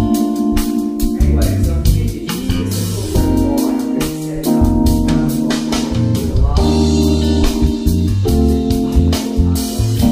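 Background music with a steady drum beat, a strong bass and held chords that change every second or two.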